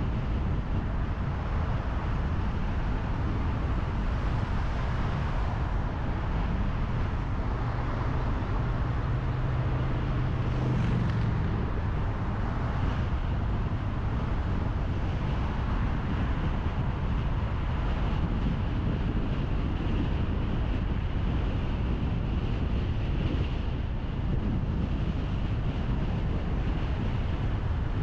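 A car driving along a road: steady engine, tyre and wind noise. A low engine note swells from about seven seconds in and drops away just after eleven.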